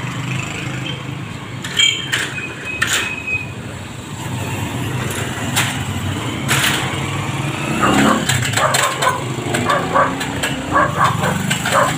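Steady engine hum of street traffic, with scattered sharp knocks and a run of short clatters in the last few seconds as an extension ladder is lifted and stood up against a pole.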